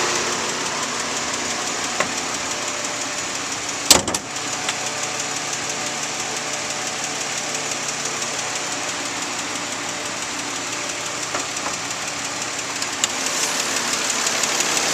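2004 Nissan Maxima's 3.5-litre VQ V6 idling warm, with a fast steady ticking over the running engine that the owner takes for lifter or valve noise. A single sharp knock about four seconds in.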